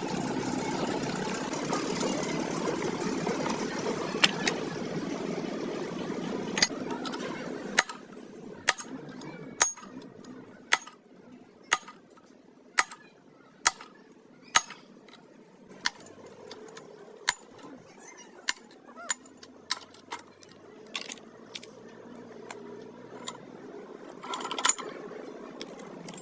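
A steady machine hum fades out about eight seconds in. After it come sharp metal-on-metal taps, roughly one a second, from tools and parts being worked on a truck gearbox.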